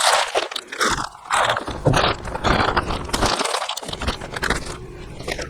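Plastic parts bag crinkling and rustling in irregular bursts as it is torn open and the caster hardware inside is handled.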